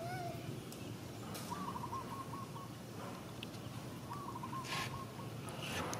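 A bird calling twice, about three seconds apart: each call is a short hooting note that wavers at its end.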